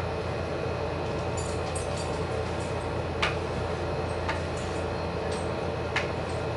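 A steady low hum with a few light, sharp taps of a marker on paper and tabletop, the clearest about three seconds in and near the end.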